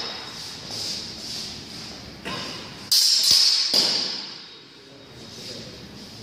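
Steel two-handed training longswords (feders) clashing in sparring: four sharp metallic clangs that ring on, one about two seconds in and three more close together between three and four seconds in, with the hall's reverberation.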